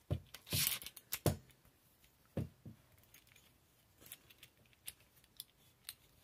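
Budget bipod's spring-loaded, notched legs being pulled out and snapped back in the hand: a sharp metallic clack, a brief scraping rattle, another clack, then two more knocks and a run of lighter ticks as it is turned over.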